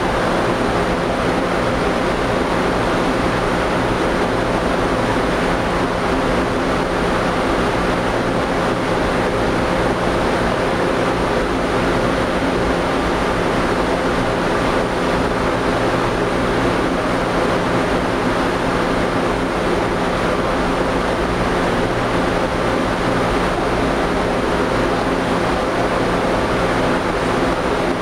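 Jetmelter stack melter aluminum melting furnace running: a steady rushing noise with a constant low hum under it.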